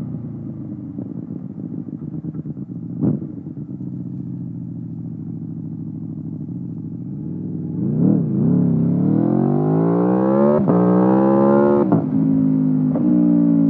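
Aprilia Tuono V4 Factory's V4 engine through an Akrapovic exhaust. It runs steadily at low revs with a sharp crack about three seconds in. It then blips twice and accelerates hard in rising pitch, broken by two quick upshifts, before settling to a steady lower note.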